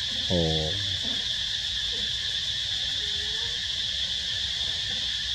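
Steady, high-pitched chorus of forest insects droning without a break. About half a second in, a brief low pitched voice sounds once.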